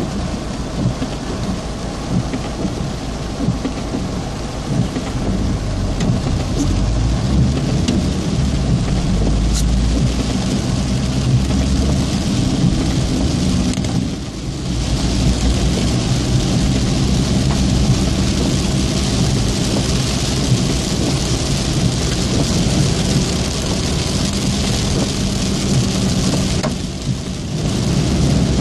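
Heavy rain drumming on a car's roof and windscreen, heard from inside the car, over a deep rumble. The downpour eases briefly twice, about halfway through and near the end.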